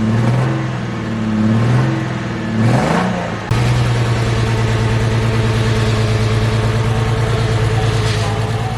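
Car engine revving up and down a few times, then switching abruptly, about three and a half seconds in, to a steady engine run at constant pitch.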